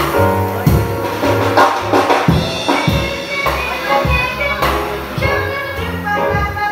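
Live jazz combo playing, with grand piano, upright double bass and a drum kit keeping a steady swing beat.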